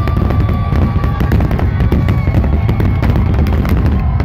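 A dense barrage of aerial fireworks: many overlapping bangs and crackles over a continuous low rumble, with show music playing underneath and a held high note that ends about a second in.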